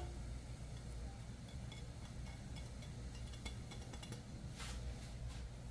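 Faint soft brushing of chopped herbs and garlic being pushed by hand off a plastic cutting board into a steel pot, over a low steady hum; the brushing is a little clearer near the end.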